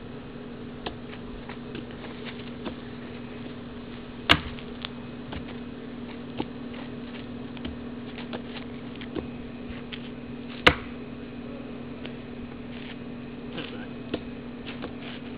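Hands and forearms knocking against the arms of a wooden kung fu training dummy (wooden man): scattered light knocks, with two much louder sharp strikes, about four seconds in and again some six seconds later.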